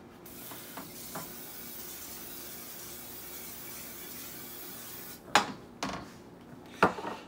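Aerosol olive oil cooking spray hissing steadily into a frying pan for about five seconds, then three sharp knocks, like the pan and can being handled on the stovetop.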